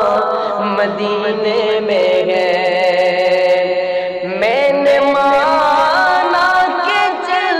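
A man singing an Urdu devotional naat in long, ornamented held notes, gliding up to a higher note about halfway through.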